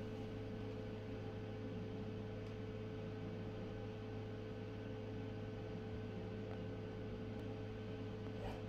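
Steady electrical hum of a facial treatment machine running while its handpiece is worked over the face, with a constant low drone and a thin steady tone above it.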